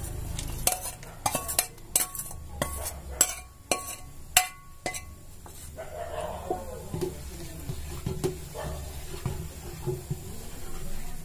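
Steel ladle clinking and scraping against a steel bowl as roasted nuts are tipped into a pot of boiling rice kheer, with sharp clinks about every half second. After about five seconds the clinking gives way to softer sloshing as the ladle stirs the nuts through the thick milk.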